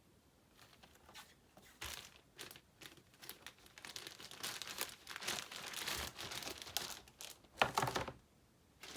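Packaging being handled: irregular crinkling and tearing, starting about two seconds in and running in bursts, with one sharp loud crackle near the end, as the next graded comic is pulled from its wrapping.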